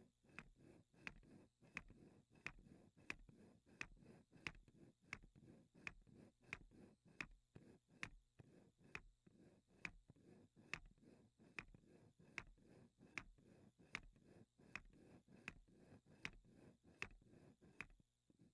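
Wooden Bessler-wheel model clicking and knocking in a steady rhythm as it turns, about three sharp clicks every two seconds with softer knocks between them, stopping just before the end.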